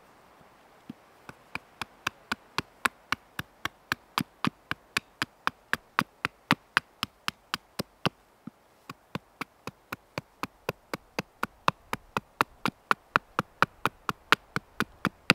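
A rapid, even run of sharp knocks, about four a second, starting about a second in and keeping a steady pace for some fourteen seconds, some strikes louder than others.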